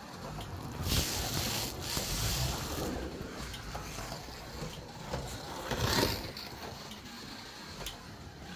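A Scalextric slot car lapping a plastic track: its small electric motor whirs and its tyres and guide rub along the track. The sound swells as the car passes close, about a second in and again around six seconds in.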